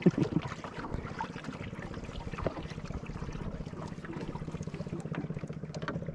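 Wooden outrigger banca under way: a small boat engine running steadily with quick, even pulses, and water washing along the hull.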